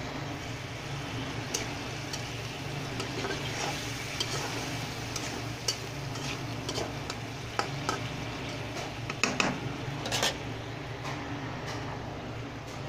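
A spatula stirring potato and pumpkin chunks in a non-stick pan, giving scattered light clicks and scrapes against the pan, over the steady sizzle of the bubbling gravy. The clicks come thickest about nine to ten seconds in.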